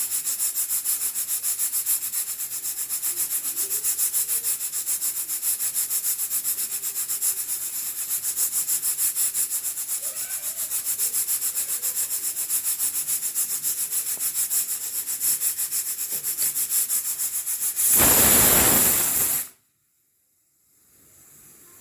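Hawkins pressure cooker letting steam escape past its weighted valve in a rapid pulsing hiss, several pulses a second. About 18 seconds in it gives its whistle: a much louder full burst of steam lasting about a second and a half, the sign that the cooker has reached pressure, which cuts off suddenly.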